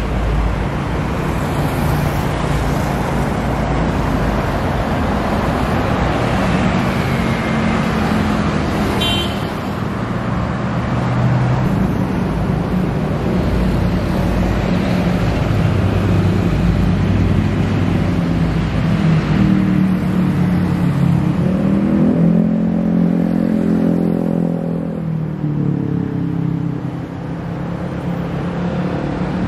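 Steady road traffic with vehicles passing. About 22 seconds in, one engine climbs in pitch and then drops away, and there is a short high blip near nine seconds.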